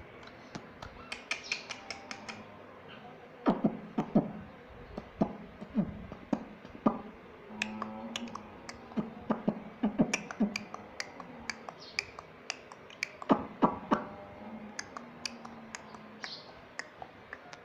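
Parrot making irregular sharp clicks with its beak and tongue, with a few short, low murmurs between them.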